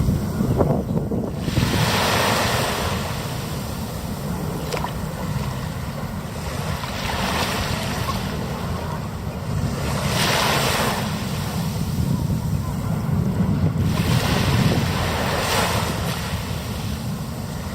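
Ocean waves breaking and washing up the beach, the surf hiss swelling four times about every three to five seconds, over a steady low rumble of wind on the microphone.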